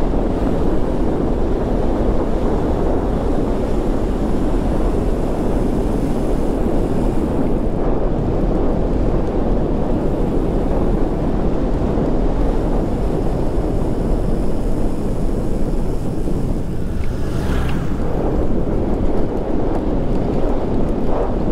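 Steady wind noise buffeting the microphone of a camera on a moving bicycle, a loud, low rushing sound.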